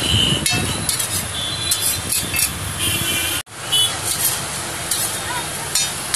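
Busy street traffic, with vehicles running and several short horn toots, over the clinks and scrapes of a metal spatula on a flat iron griddle where sandwiches are toasting. The sound drops out abruptly for an instant about three and a half seconds in.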